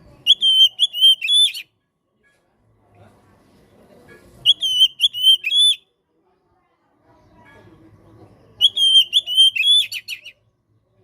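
Oriental magpie-robin (kacer) singing three phrases about four seconds apart. Each phrase is a run of four or five repeated high whistled notes ending in a quick burst of sharp notes.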